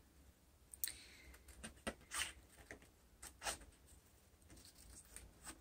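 Scissors cutting paper: a few faint, irregular snips.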